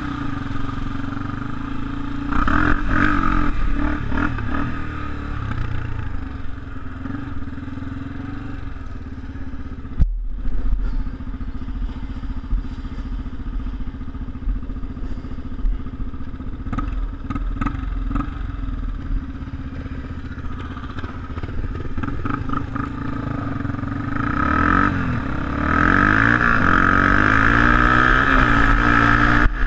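Quad (ATV) engine heard close up from on board, running at a steady low speed with dirt-bike engines around it. After about 24 seconds it revs up and gets louder as the quad rides along the gravel track.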